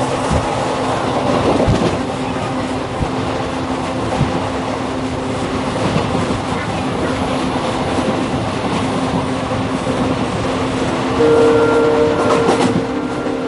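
Passenger train running at speed, heard from an open doorway of the moving coach: a steady rumble of wheels on rail with a few sharp clacks. About eleven seconds in, a train horn sounds a steady blast of about two seconds.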